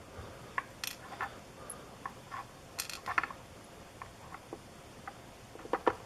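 Scattered light clicks and ticks of small lock pins and springs being dumped out of a pin-tumbler lock while it is gutted, irregular, with a quick cluster near the end.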